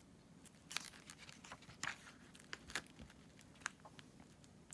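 Paper being handled: faint, scattered crinkles and clicks, a dozen or so short ticks spread unevenly.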